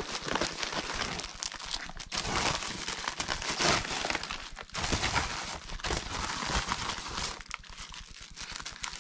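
Plastic poly mailer bag crinkling and rustling as it is handled and opened, with small boxes sliding out of it.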